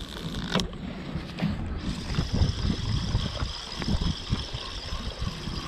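Sea water slapping irregularly against the hull of a small fishing boat, with wind on the microphone.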